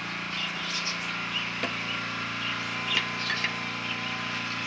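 A steady low mechanical hum runs under short, high bird chirps, with two light clicks about a second and a half and three seconds in.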